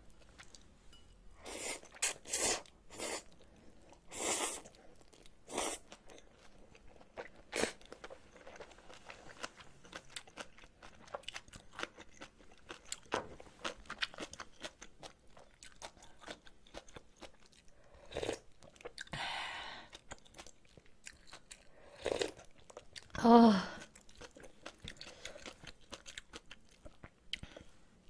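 Close-miked eating: crisp crunching bites of napa cabbage kimchi and chewing, with noodle slurps. About 19 seconds in there is a longer slurp. About 23 seconds in comes a short, louder pitched sound.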